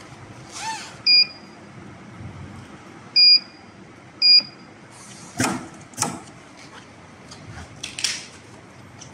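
Touchscreen control panel of a CNC rope sewing machine beeping three times, short and high-pitched, as its keys are pressed. A few sharp clicks or knocks follow in the second half.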